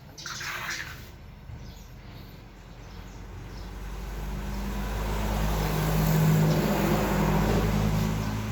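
A motor vehicle's engine hum swelling over a few seconds and then holding fairly steady.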